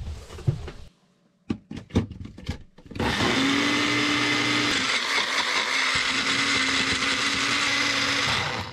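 Magic Bullet personal blender puréeing corn, garlic, herbs, lemon and olive oil into a sauce. A few clicks and knocks as the cup is seated on the base, then about three seconds in the motor starts and runs steadily for about five and a half seconds, stopping just before the end.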